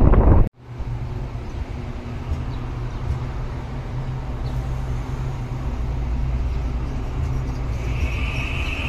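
Taiwan Railways EMU800 electric multiple unit at a platform, its equipment giving a steady low hum as it starts to move off. A higher whine from the drive comes in about eight seconds in. Before that, wind rumbling on the microphone cuts off sharply about half a second in.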